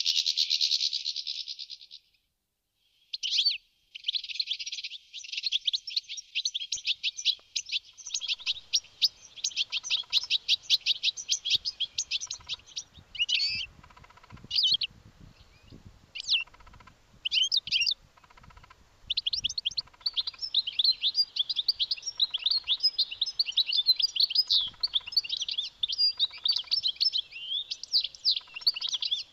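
European goldfinch singing: long runs of rapid, high twittering, broken in the middle by shorter separate phrases.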